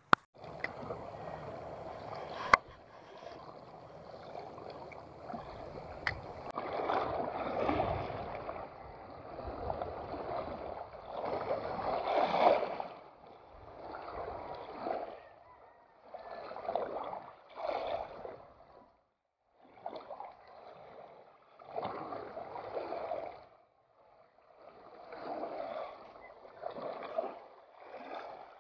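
Shallow seawater sloshing and swishing in irregular bursts, swelling and fading every second or two, with a sharp click about two and a half seconds in.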